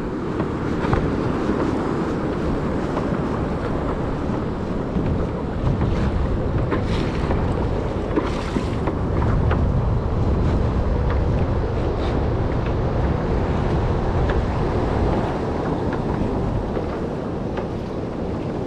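Wind buffeting the microphone over choppy sea water washing and slapping around a fishing kayak, a steady rumbling rush with a few light knocks.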